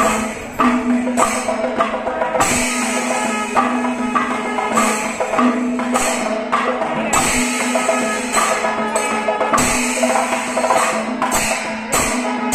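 Kerala chenda melam: massed chenda drums beaten with sticks over the clash of elathalam hand cymbals, with kombu horns sounding held notes that break off and come back in. The drum strokes come faster near the end.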